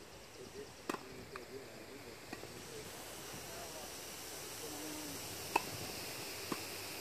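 Tennis ball being hit on a grass court: a few sharp, distant pocks of racket on ball and bounces, about a second in and again near the end, over faint voices and a steady hiss.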